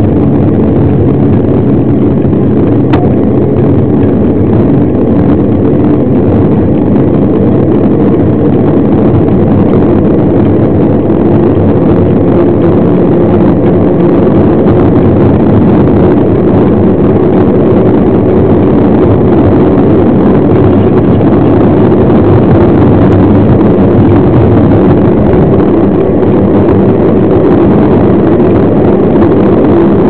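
Loud, steady wind rumble on the microphone of a camera mounted on a mountain bike riding at speed.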